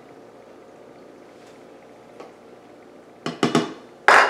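Quiet room tone, then from about three seconds in a quick run of knocks and clinks, the loudest near the end: a measuring cup knocking against a glass mason jar as cooked chicken is added.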